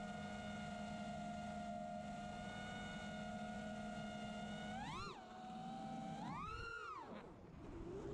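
FPV freestyle quadcopter's brushless motors and propellers whining at a steady hover pitch. About five seconds in the pitch jumps up and falls back as the throttle is punched. A broader rise and fall follows, and near the end the pitch climbs again as the quad flips and dives.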